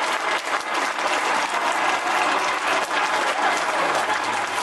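A crowd applauding: many hands clapping at once in a dense, steady patter.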